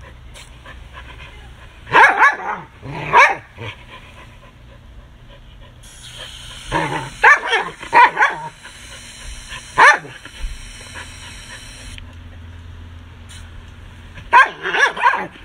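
A dog barking in clusters of a few sharp barks as it snaps at the spray from a garden hose nozzle. A steady hiss of spraying water runs under the barks through the middle stretch.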